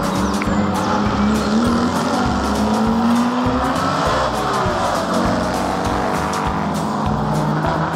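Classic cars driving past one after another with their engines running; a Porsche 356 passes close by about four seconds in, its engine note shifting in pitch as it goes by.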